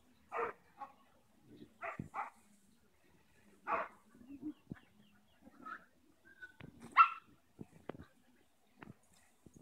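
A dog barking in short, single barks, five or six spread unevenly, the loudest about seven seconds in.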